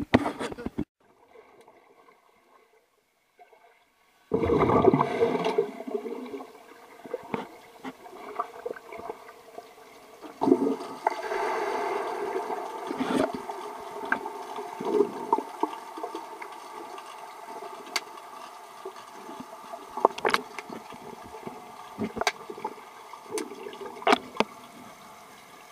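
Water and air bubbles in a swimming pool heard underwater: a sudden rush of bubbling water about four seconds in, then steady bubbling and gurgling with scattered sharp clicks.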